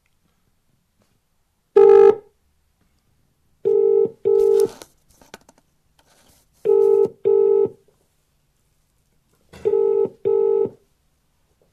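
British telephone ringback tone heard through a phone's speaker: a short tone about two seconds in, then three double rings ('ring-ring') about three seconds apart. The outgoing call is ringing and has not yet been answered.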